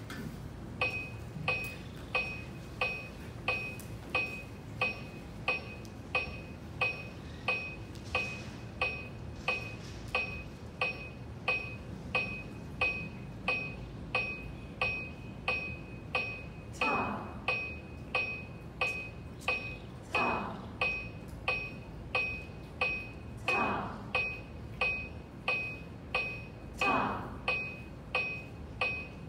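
Electronic metronome beeping steadily at about 90 beats a minute, each beat a short click with a bright ring, keeping tempo for conducting practice. Four falling swoops, about three seconds apart, sound over it in the second half.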